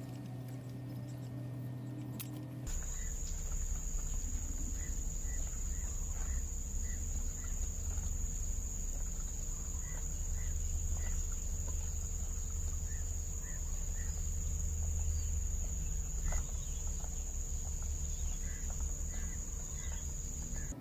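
Steady, high-pitched drone of insects that starts abruptly a few seconds in, with short chirps now and then and a low fluttering rumble underneath.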